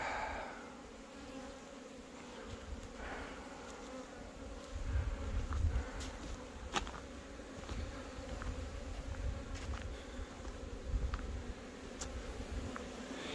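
Honeybees buzzing around the hives: a faint, steady hum of many bees in flight, with a few light clicks.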